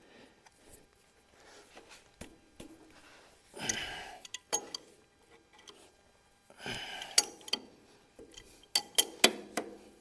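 A wrench and steel bolts clinking against each other in scattered sharp clicks, with two short scraping noises about four and seven seconds in and the clicks coming quicker near the end.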